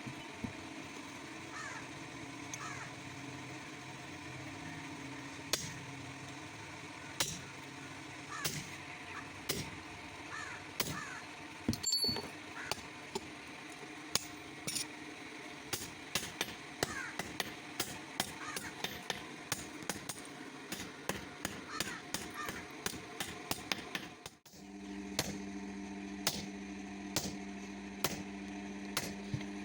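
Hammer blows on metal at the forge, irregular single strikes that come more often in the second half, over a steady hum.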